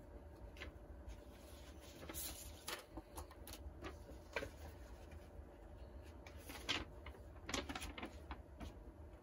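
Paper sheets rustling and crinkling as they are handled, in short scattered spells with a few light clicks, over a faint steady low hum.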